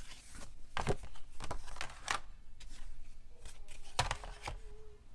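Game pieces being handled and packed into a plastic tray insert: light rustling with a series of sharp plastic clicks and knocks as a cardboard dial is set in and a card sheet is laid over the tray.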